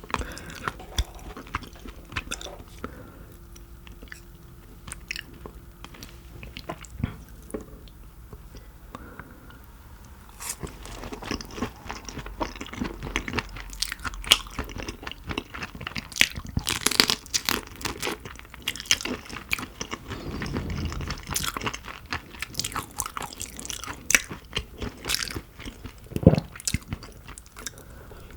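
Close-miked eating of shrimp: crunching, biting and chewing. The sharp crackles are sparse at first and come thick and fast in the second half.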